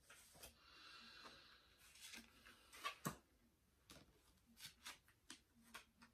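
Faint handling of reading cards on a cloth-covered table: a soft sliding rustle about half a second in, then scattered light taps as cards are turned and laid down.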